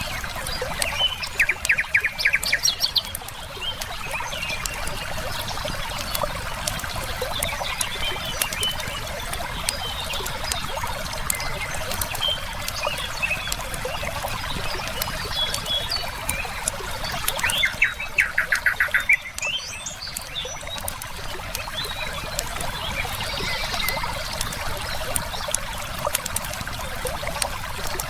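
Nature ambience of steady river flow with small crackling pops from a wood firepit and scattered bird chirps. Twice, once near the start and again about two-thirds of the way through, a loud rapid trill of repeated notes stands out.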